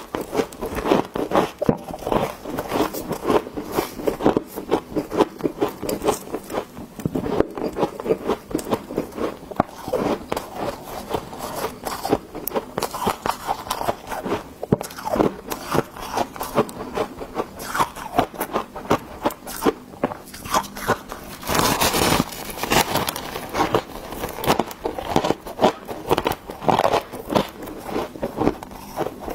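Biting and crunching mouthfuls of refrozen freezer frost: a rapid, continuous run of crunches, with one louder, longer crunch about three-quarters of the way through.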